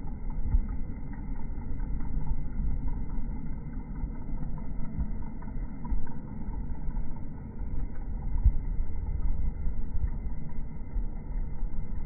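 Low, uneven rumbling noise with a few soft thumps.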